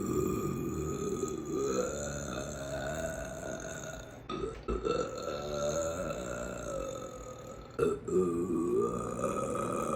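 A woman belching: three long, drawn-out burps back to back, each lasting about three to four seconds, with abrupt breaks between them.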